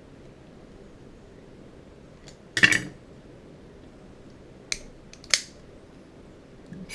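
American 1105 padlock being worked with its key after reassembly, metal clicking: a loud clack about two and a half seconds in, then two sharp clicks near the end.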